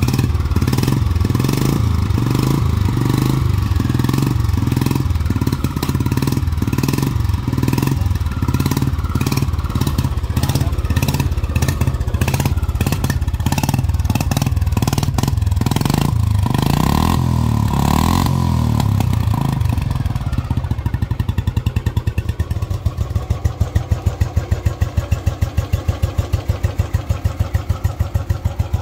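Restored 1980 Royal Enfield Bullet's single-cylinder four-stroke engine running. Its beat is uneven for the first twenty seconds or so, then it settles into a steady idle with evenly spaced exhaust beats.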